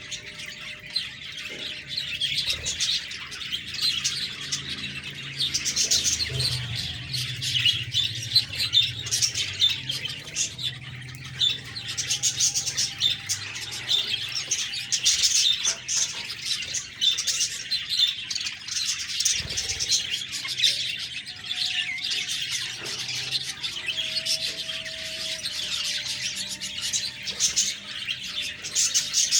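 A flock of budgerigars chirping and chattering continuously in a dense, overlapping twitter, with a few short held notes now and then.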